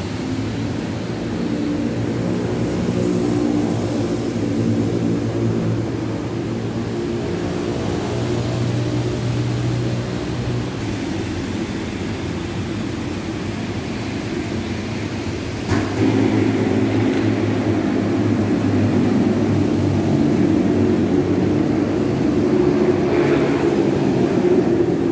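An engine running steadily with a low, even hum that gets louder about 16 seconds in.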